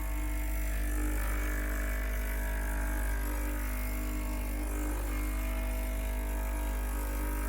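Amazon Basics espresso machine's pump running with a steady, even hum.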